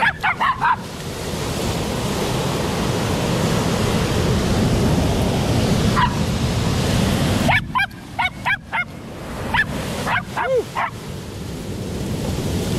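A dog barking excitedly in quick runs of short barks: a run at the start, a single bark about six seconds in, and two more runs near the end. Behind it, large surf breaking on the beach makes a steady loud rush.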